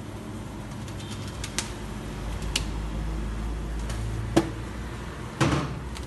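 Steady low background hum with a few sharp clicks and knocks, the loudest about four and a half seconds in and a slightly longer clatter near the end.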